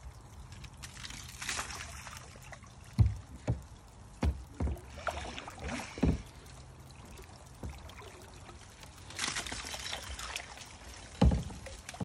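Water trickling and splashing around a kayak, with gentle swells of splashing from paddling, broken by six dull low thumps.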